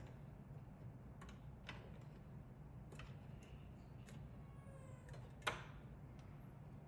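Small clicks and taps of a butane gas canister being handled and fitted into a portable gas stove's canister compartment. There is a brief squeak about four and a half seconds in, then a sharper click as the canister meets the regulator.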